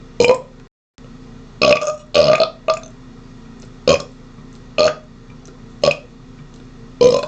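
A man burping deliberately over and over: about eight short belches, roughly one a second, with a longer, drawn-out one about two seconds in.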